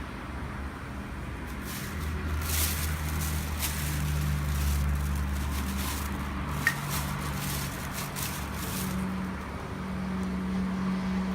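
Wood campfire crackling, with a scatter of pops from about two seconds in and one sharp pop near the middle, over a steady low engine-like hum.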